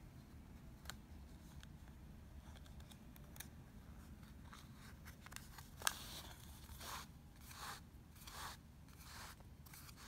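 Yarn being drawn through the warp strands of a CD weaving, giving about four short, soft rasping swishes in the second half, with a sharp click just before that.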